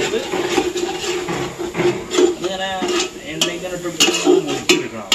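Metal spoon stirring and scraping in a cooking pot, with a few sharp clinks of metal on metal near the end.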